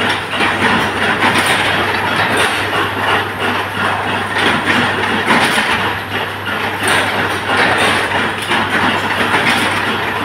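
25 kW induction forging machine running under load, a steady loud mechanical noise with a constant low hum underneath.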